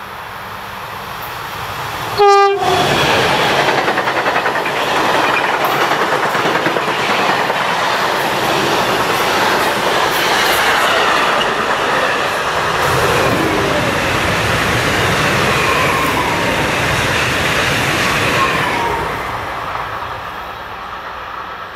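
Railpool class 187 locomotive's Makrofon horn gives one short blast about two seconds in, the loudest sound here. Then comes the long, steady rolling clatter of the passing sleeper train and tamping machine's wheels on the rails, fading near the end.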